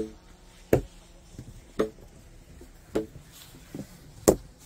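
Footsteps in deep snow: a crunching step about once a second, six or so in all, the loudest near the end.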